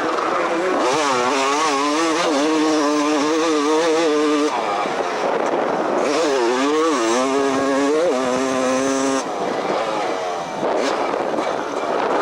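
A 250cc two-stroke motocross bike's engine heard from on board, its pitch wavering up and down as the throttle is worked. The engine note drops away abruptly about four and a half seconds in and again about nine seconds in as the throttle is shut, then climbs again.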